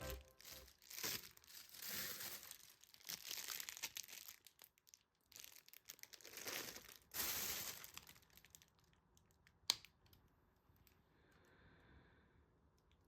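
Faint crinkling and rustling in several short stretches, then a single sharp click about ten seconds in.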